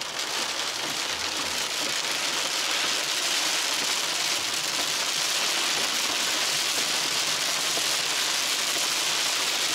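Heavy rain hitting a van's roof and windshield, heard from inside the cabin as a steady, loud hiss.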